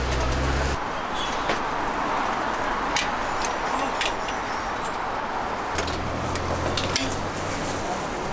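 Busy outdoor market ambience: a steady din with scattered sharp clicks, and a low engine rumble near the start and again about six seconds in.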